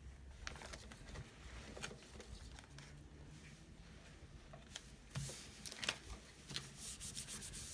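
Faint handling sounds of transfer tape and vinyl being laid onto and rubbed down on a small glass cutting board: scattered light taps and crackles, with a quick run of ticks near the end.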